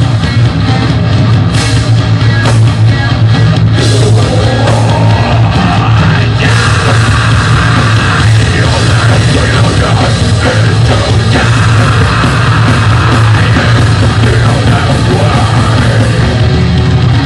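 Death metal band playing live at full volume: distorted electric guitars, bass and fast drums, with harsh shouted vocals over them.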